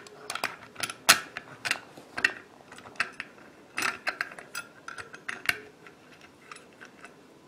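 Small metal parts of a Marlin 39A lever-action .22 clicking and scraping as the lever is fitted and its long screw lined up and started: irregular sharp clicks, the loudest about a second in.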